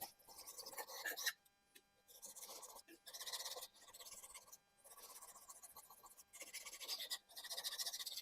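Japanese kitchen knife blade stroked back and forth on a whetstone: a steady series of gritty scraping strokes, about one a second, with short pauses between them, while the second side of the edge is sharpened.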